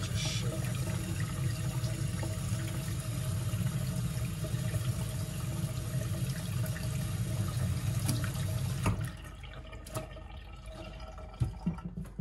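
Kitchen tap running into a stainless steel sink as a paintbrush is rinsed and its bristles squeezed under the stream. The water stops about nine seconds in, followed by a few light knocks.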